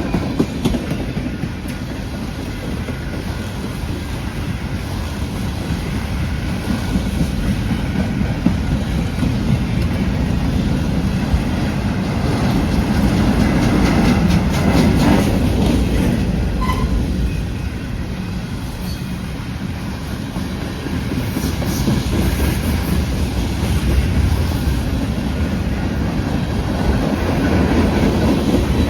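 Freight train rolling past: a steady low rumble of the cars, with the wheels clacking over rail joints in groups.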